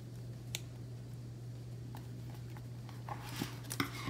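Light handling of a paper planner: a single soft click early, then a few small clicks and paper rustles near the end as the planner is picked up, over a steady low electrical hum.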